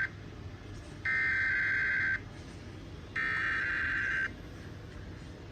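Emergency Alert System SAME data tones for a required weekly test: harsh, buzzy electronic bursts about a second long each, with about a second of quiet between them. One burst ends right at the start, and two more follow about one and three seconds in.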